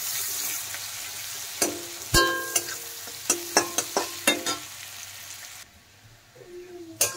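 Sliced onions sizzling in oil in a kadai as a metal spatula stirs them, clinking and scraping against the pan about seven times, each strike ringing briefly. The sizzle fades out about five and a half seconds in.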